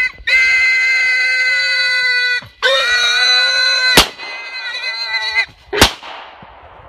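Shot feral hog sow squealing in two long, high, piercing squeals while a subcompact .40-calibre pistol fires twice at her, once during the second squeal and once just after it stops.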